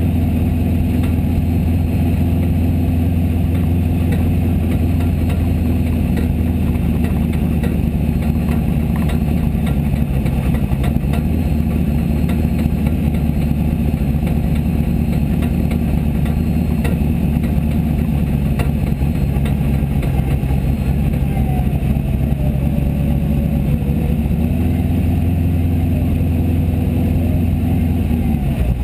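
Formula Offroad buggy's engine running steadily at low revs, heard from inside the open cockpit. The low engine note eases a little midway and picks up again about 24 seconds in.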